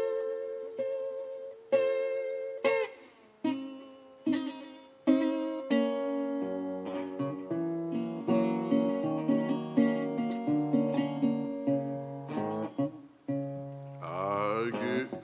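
Resonator guitar fingerpicked in a solo country blues introduction: plucked single notes and chords that ring on, with a busier run of overlapping notes in the middle.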